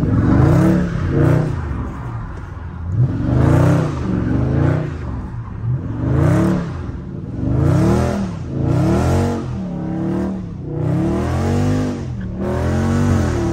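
Dodge Charger Scat Pack's 392 HEMI V8 revving up and falling back again and again, roughly every one to two seconds, as the driver pats the throttle in second gear to keep the car sliding on the wet road.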